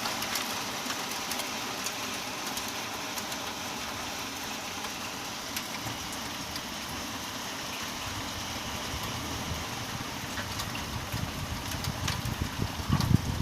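Heavy rain and hail falling: a steady hiss scattered with sharp ticks of hailstones striking. Near the end, gusts of wind rumble on the microphone.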